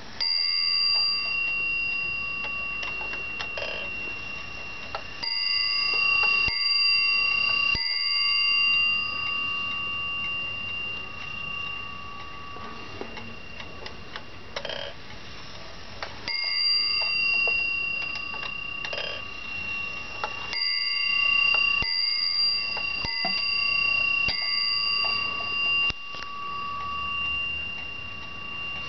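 Warmink Dutch 8-day Schippertje wall clock striking its bell as its hands are turned by hand. Single strikes come a few seconds apart, each ringing on for several seconds, with the movement's clicks and ticking in between.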